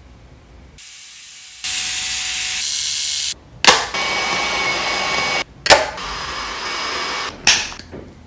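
Handheld JOVS IPL hair-removal device running: a steady fan whir with a faint whine, broken three times by a sharp click about two seconds apart as it flashes.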